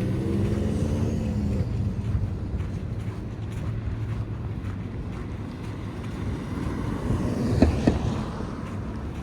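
City street traffic: a vehicle engine's low rumble, its pitch falling slightly as it passes in the first second and a half, under a steady traffic hum. A couple of sharp knocks sound about seven and a half seconds in.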